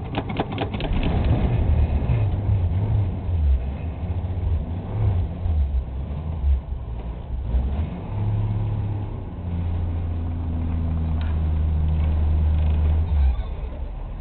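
1962 Ford Falcon's 200 cubic-inch straight-six running, its revs rising and falling, then held higher for a few seconds before dropping back near the end. The engine is warming up just after a cold start in sub-freezing weather.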